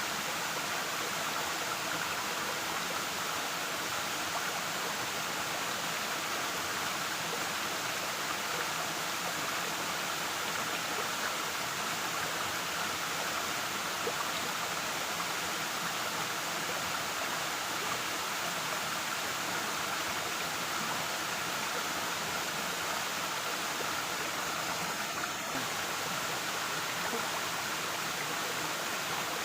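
Waterfall: steady rushing and splashing of falling water, even and unchanging throughout.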